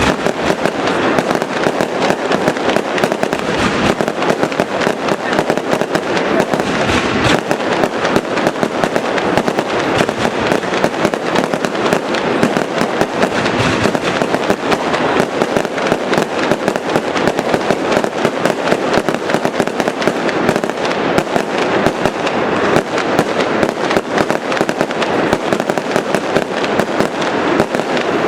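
Fireworks display going off in a dense, unbroken barrage of rapid bangs and crackling, with no pauses between the reports.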